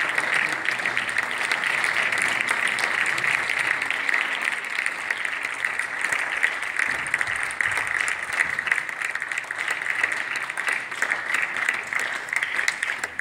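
Theatre audience applauding steadily, a dense even clatter of many hands clapping that starts to die away at the very end.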